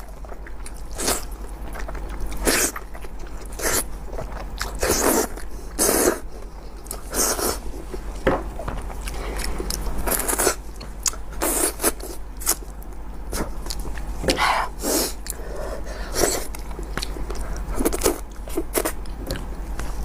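A person chewing and biting the meat of a cooked sheep's head close to the microphone: irregular short mouth and bite noises, from a fraction of a second to about a second apart.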